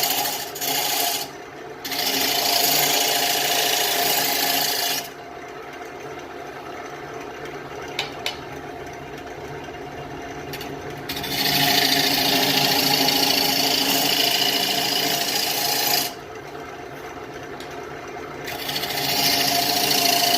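Wood lathe spinning a Russian olive bowl blank while a turning tool cuts into it in loud scraping passes. The cutting stops twice, about five seconds in and again about sixteen seconds in, leaving only the lathe motor running before the tool bites again.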